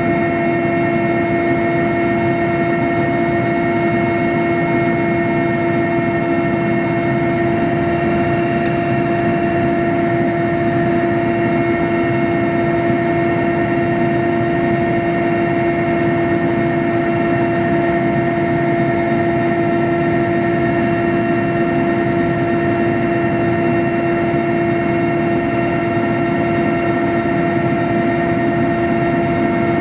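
Aircraft in flight: engines running with a steady drone and a constant, even whine.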